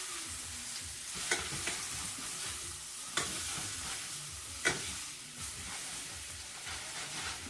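Ribeye steaks searing in hot coconut oil in a pan: a steady sizzle, with a few sharp crackles from the fat.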